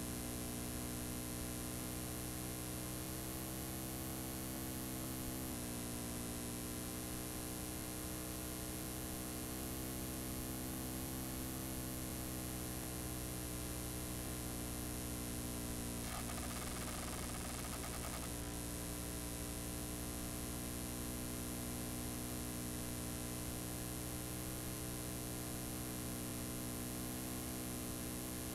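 Steady electrical mains hum with its overtones under a hiss of static: the noise of blank analog tape with no programme on it. About sixteen seconds in, the upper tones of the hum briefly drop out into a smoother hiss.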